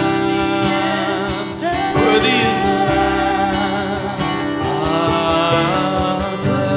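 Acoustic guitar and digital piano accompanying a woman singing a worship song, with her voice rising and falling over steady chords.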